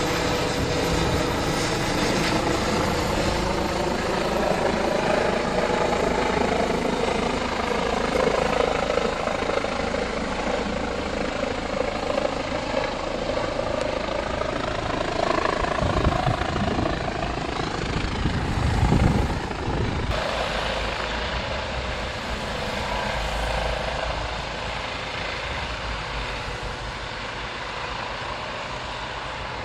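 Eurocopter EC135 air ambulance helicopter flying low overhead on its approach to land: steady rotor and turbine sound whose pitch drops as it passes, with two brief low rumbles past the middle, then fading toward the end as it moves away and descends.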